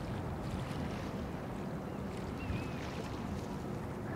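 Waterside ambience of wind on the microphone over a low, steady rumble from the port and the boats on the water. A short, faint chirp comes about halfway through.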